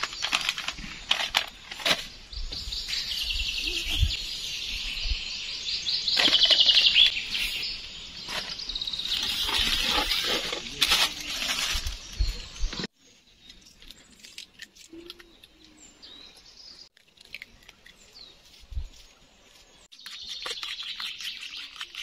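Songbirds chirping and trilling outdoors. The chirping cuts off suddenly about halfway through, leaves only faint sounds, and picks up again near the end.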